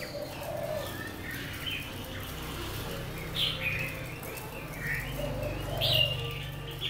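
Caged Chinese hwamei (họa mi) giving scattered short whistled notes and chirps, with two louder downward-sliding notes about three and a half and six seconds in, over a steady low hum.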